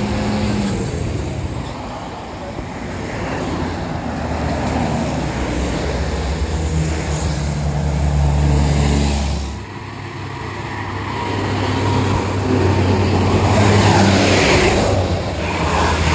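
Roadside traffic with large diesel vehicles, likely buses, passing close by. A deep engine note drops away sharply a little under ten seconds in. A louder rush of another passing vehicle then builds, loudest a few seconds before the end.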